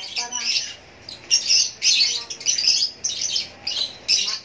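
Small birds chirping over and over in short, high-pitched bursts, with a brief human voice near the start.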